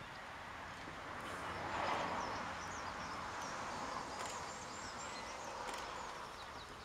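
Outdoor ambience: a steady rushing noise that swells about two seconds in, with small birds chirping in quick high notes throughout.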